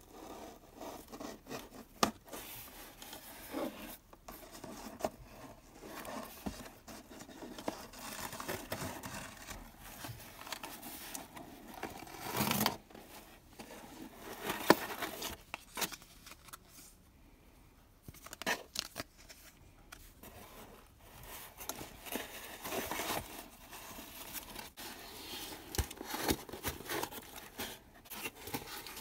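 A cardboard mailing box being opened by hand: twine pulled off, and the flaps worked loose and lifted. Irregular scraping and rustling of cardboard, broken by sharp clicks.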